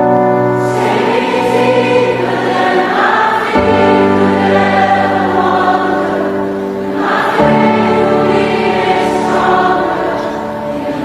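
Background music of a choir singing long held chords, the chord changing about every three and a half seconds.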